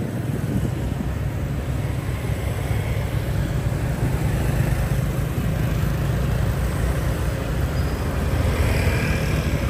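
Busy city street traffic heard while moving along the road: vehicle engines running with a steady low hum under continuous road noise.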